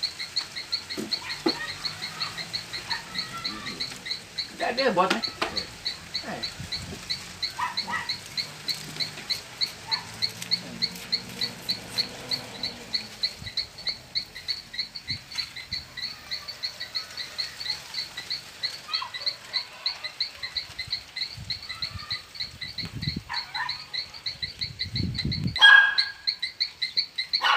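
An animal's high chirping call, repeating steadily about three times a second. A louder short call near the end sounds like a dog barking.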